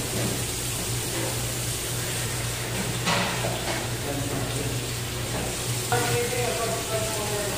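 Tap water pouring steadily into a stainless steel sink while fish are rinsed and handled under the stream, over a steady low hum.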